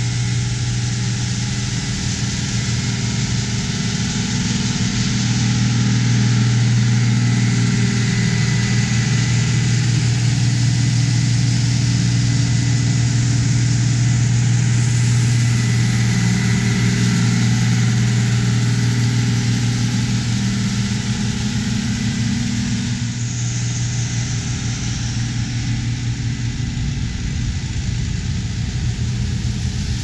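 Tractor diesel engines running steadily as a grain cart's unloading auger feeds corn into a Loftness grain bagger, a deep even hum under a steady rushing noise.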